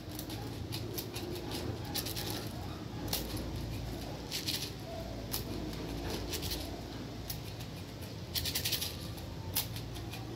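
Light clicks and rattles from a gas blowback airsoft pistol being handled by hand, with short clusters of high-pitched clicking about four and a half and eight and a half seconds in.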